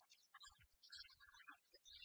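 Near silence, with faint scattered blips of sound.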